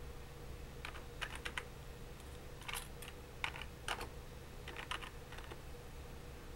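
Computer keyboard keys being typed in short uneven bursts of a few clicks each, entering a terminal command. A faint steady hum runs underneath.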